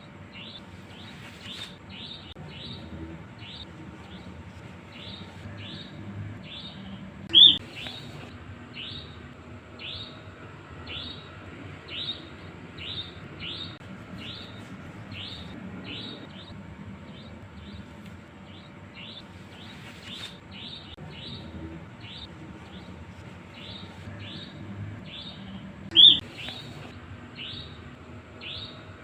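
Nightjar calling: a steady series of short, high, falling notes, a little more than one a second. Two much louder, sharper calls stand out, about a quarter of the way in and again near the end.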